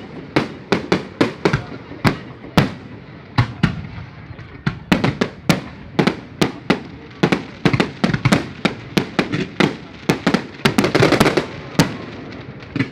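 Fireworks going off: a rapid, irregular series of sharp bangs, several a second, with a denser flurry of bangs about ten seconds in.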